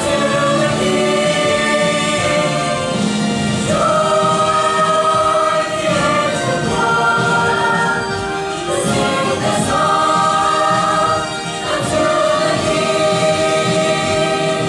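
A choir singing in several parts, holding chords that shift every couple of seconds from phrase to phrase.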